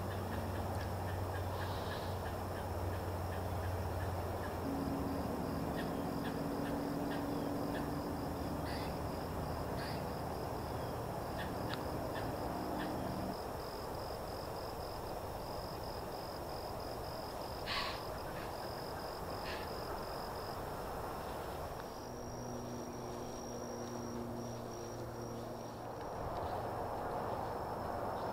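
Outdoor ambience of a steady, high insect drone over a distant engine hum with steady low tones that shift in pitch about five seconds in and fade out about thirteen seconds in. Scattered short high clicks are heard, with the loudest about eighteen seconds in.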